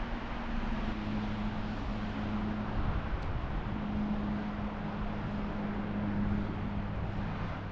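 Steady low hum over a continuous rushing noise, like a vehicle running, dropping away right at the end.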